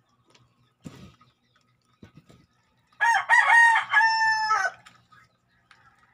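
A rooster crowing once: a loud call of nearly two seconds in several linked notes that drops in pitch at the end. Before it, about a second in, there is a soft knock.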